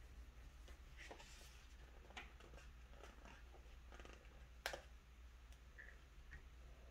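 Near silence: room tone with faint scattered rustles and small clicks, one sharper click about two-thirds of the way through.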